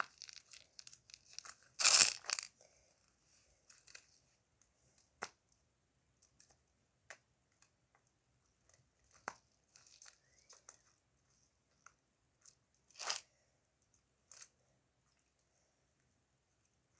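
Silicone pop-it fidget toy being pressed and handled: scattered soft pops and clicks, with a louder crackly burst about two seconds in and another about thirteen seconds in.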